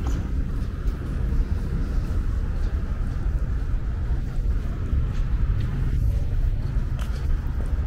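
Steady low rumble of outdoor city street noise, with a few faint clicks.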